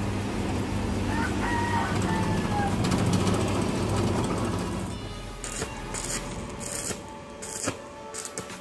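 Bench drill press motor running as the bit bores into a steel pipe, with a rooster crowing once in the background about a second in. About five seconds in the drilling stops, and a few short crackling bursts of stick-welding arc follow as the pipe is tacked.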